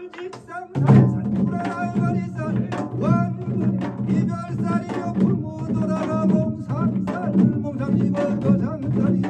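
A man's voice chanting a binari, the Korean blessing song, over a pungmul ensemble of janggu hourglass drums and buk barrel drums. The drumming comes in loudly about a second in and continues as steady rapid strokes under the chant.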